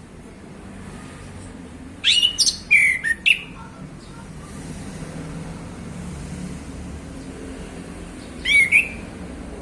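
Male chestnut-capped thrush (anis kembang) singing: a quick burst of several sharp whistled notes about two seconds in, then a shorter phrase near the end, over a steady low background rumble.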